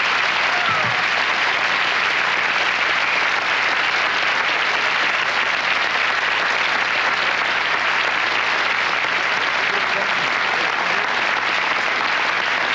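Studio audience applauding steadily after a song ends.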